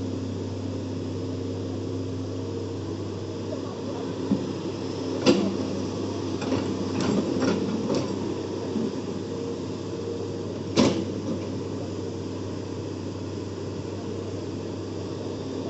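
Hitachi hydraulic crawler excavator's diesel engine running steadily while it digs soil. Sharp knocks cut through it about five seconds in, several more in quick succession shortly after, and another loud one near eleven seconds.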